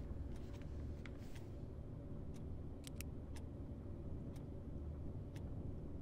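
Clock ticking about once a second in a quiet room, over a low steady hum. Paper pages of a crossword book rustle softly as they are turned about a second in.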